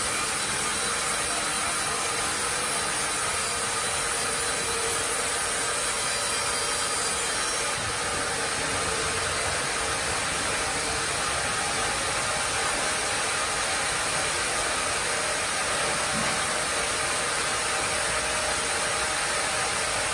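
Carriage sawmill cutting a tree-of-heaven log, the saw blade and machinery running with a steady, loud noise as the carriage feeds the log past the blade. The sound gets slightly brighter about eight seconds in.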